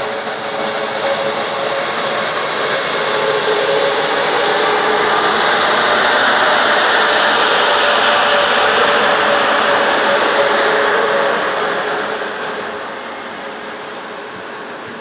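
Czech Railways class 371 electric locomotive and its passenger coaches rolling past close by: a steady rumble of running gear with a held hum. It grows to its loudest in the middle and falls away about two seconds before the end.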